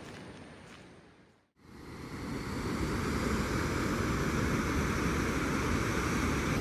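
Steady rushing water noise that fades out about a second and a half in, then comes back in louder and holds steady.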